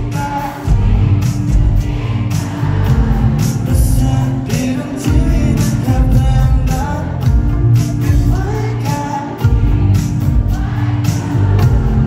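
Live pop-rock band playing a song in full, with drums, guitar and a sung lead vocal, heard from the crowd in a large, reverberant arena.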